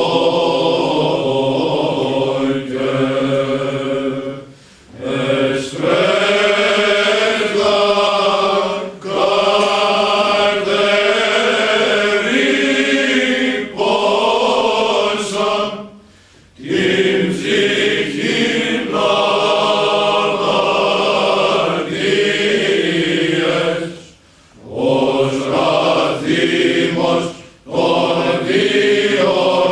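Male Byzantine choir singing a Greek Orthodox troparion to the Theotokos unaccompanied, in long phrases broken by brief pauses.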